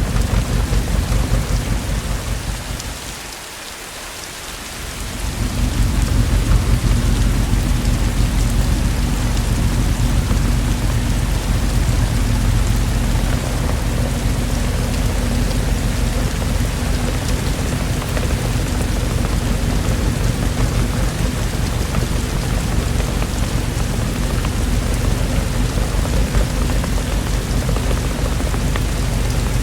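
Steady, heavy rainfall with a continuous low rumble underneath. About three seconds in the sound briefly dips quieter, mostly losing its low rumble, then comes back to full strength.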